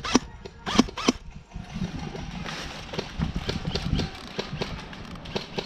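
Footsteps of a player on the move: a few footfalls in the first second, then a steady rustle of clothing and gear for a few seconds, and faint regular footfalls again near the end.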